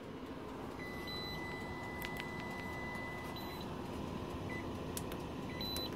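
An electronic alarm beeper sounds one long, steady beep of about three seconds, with a few short, higher bleeps, over a low steady hum. It sounds just after the battery's BMS has tripped on over-current protection.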